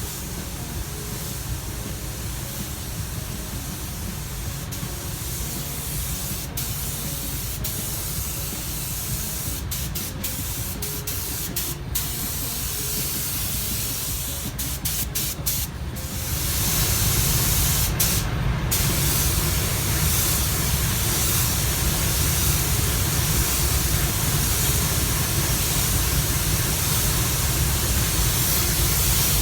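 Paint spray gun spraying, a steady hiss of air and atomised paint with several brief breaks, getting louder about halfway through.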